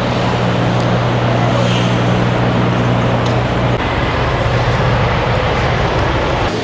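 Truck engine droning steadily under road noise while driving. The engine's steady hum drops away about four seconds in, and the road noise carries on.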